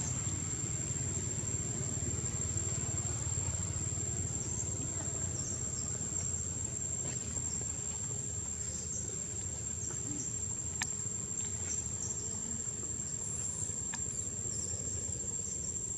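A steady, high-pitched insect trill that goes on without a break, over a constant low rumble of background noise. A few short, faint chirps come and go, and there is one sharp click about eleven seconds in.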